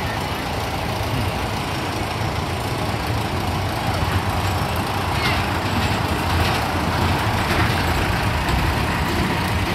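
Kiddie roller coaster train running along its steel track: a steady rumble that grows a little louder about four seconds in.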